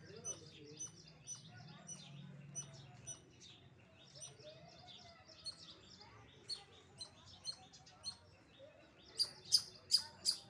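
Squirrel chirping: a series of short, sharp, high-pitched chirps about one to two a second, with four louder chirps in quick succession near the end.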